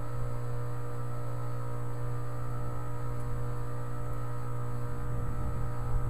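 A 2010 Tempstar 3-ton heat pump's outdoor unit running with a steady, even hum.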